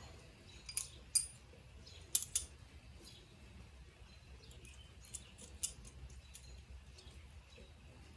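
Copper bubble cap and plate from a bubble-plate still being handled and taken apart, giving a handful of light metallic clicks: the sharpest about a second in, a pair just after two seconds, and a few fainter ones around five seconds.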